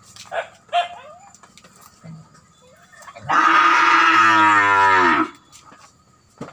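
A cow mooing once, a single long call of about two seconds about halfway through, dropping in pitch as it ends.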